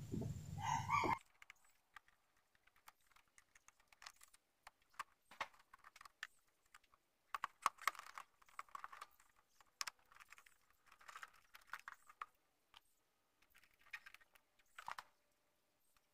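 Faint, scattered clicks and plastic snaps as the inner trim panel of a Proton Wira's rear door is pried off its clips and handled, with a busier run of clicks around the middle.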